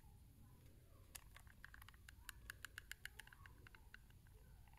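Near silence, then a quick run of faint clicks, several a second, from about one to three and a half seconds in, as a hot glue gun is worked against a small metal alligator hair clip.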